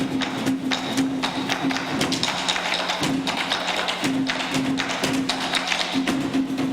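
Instrumental music: a held low note with short breaks, over quick, irregular wood-block-like percussive taps.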